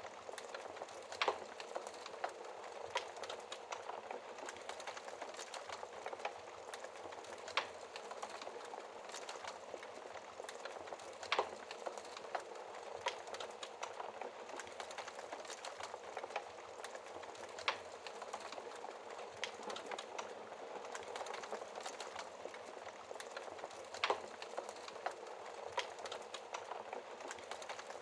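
Wood fire crackling steadily, with a sharp, louder pop every few seconds.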